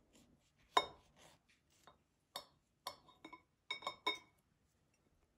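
Knife blade clinking against a ceramic plate as it cuts down through a loaf cake: a row of sharp clinks with a short ring, the loudest about a second in, then several lighter ones between about two and four seconds in.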